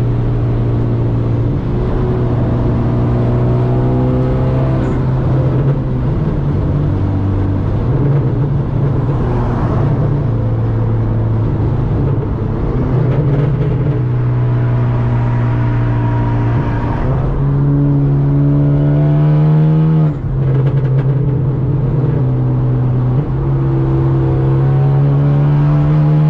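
Straight-piped turbocharged Hyundai Genesis Coupe exhaust, heard from inside the cabin while driving. The engine note climbs in pitch under acceleration several times, and each climb drops suddenly as the car shifts up a gear. Three such pulls come close together in the second half.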